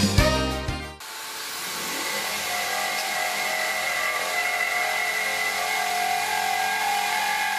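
Electric drill with a diamond core bit grinding through wet glass: a steady motor whine over a gritty hiss. It starts about a second in, after a moment of music, and swells briefly before holding steady.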